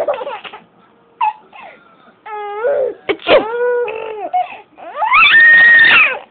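Seven-month-old baby laughing and squealing at a high pitch in a string of short calls, then one long, loud squeal about five seconds in.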